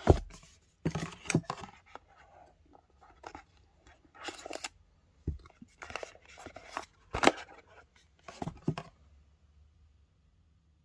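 Packaging of a guitar effects pedal being opened and handled: an irregular run of rustles, scrapes and sharp clicks, with a loud knock about seven seconds in, stopping about nine seconds in.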